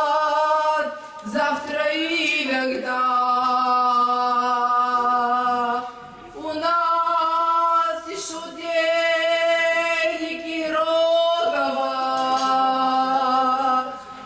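A woman singing a slow song into a microphone, with a man's voice joining in, in long held phrases separated by short breaths.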